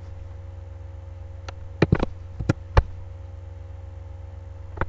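Several sharp clicks from a computer keyboard and mouse: a cluster around two seconds in and one more near the end, over a steady low electrical hum.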